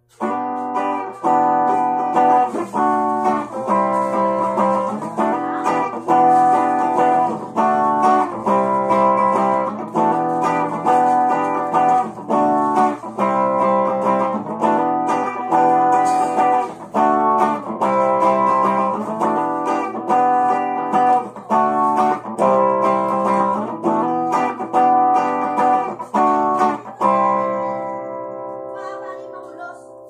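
JCraft Telecaster-style electric guitar on its bridge pickup, played clean through a small 10-watt practice amp. Chords are strummed in a steady rhythm, and the last chord is left ringing and fading near the end. A low steady hum runs underneath.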